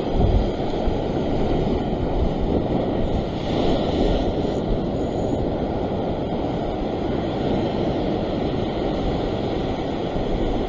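Ocean surf washing against a rock ledge: a steady rush of breaking waves, with wind buffeting the microphone.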